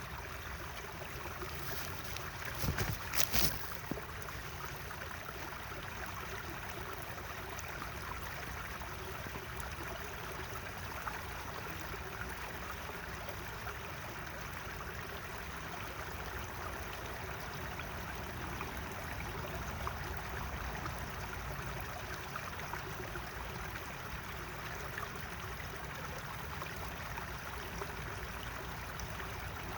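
Natural running water, a stream flowing steadily. A brief cluster of sharp knocks about three seconds in.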